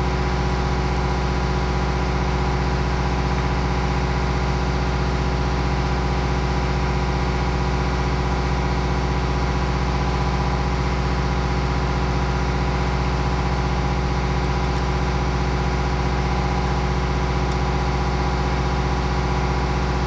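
An engine or motor running steadily at idle, an even, unchanging hum with no change in speed.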